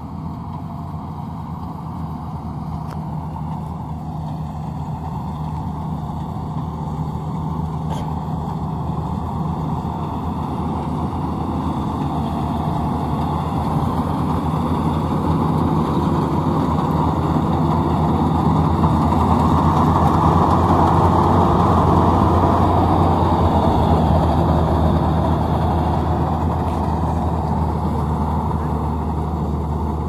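Maxxi NDR85 combine harvester running steadily while harvesting rice. It grows louder as it draws near, is loudest a little past the middle, then fades slightly.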